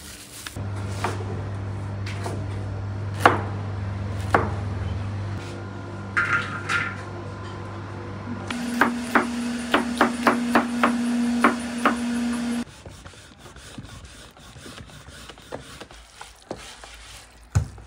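Knife chopping on a plastic cutting board, about three quick chops a second for some four seconds, over a steady hum. Before it a lower steady hum with a few sharp knocks, and after it faint sounds of hands mixing a chopped meat-and-herb filling.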